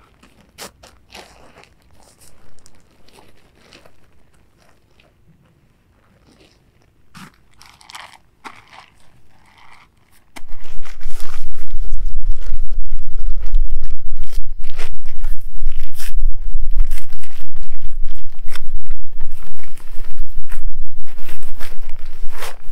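Scattered crunching and rustling. About ten seconds in, a loud low rumble on the microphone sets in under continued crunching.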